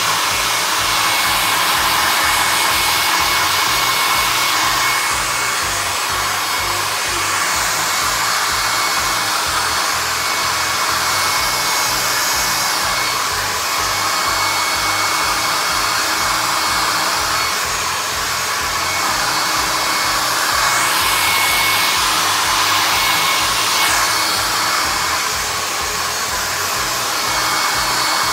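Handheld blow dryer running steadily while drying hair, a loud even rush of air with a thin steady whine on top; the sound swells and dips slightly as the dryer is moved around.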